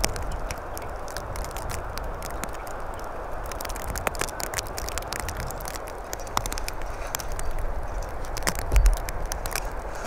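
Metal shovel scraping and scooping wet mud from a plastic bucket and dropping it onto snow, with scattered small crackles and a dull thump near the end.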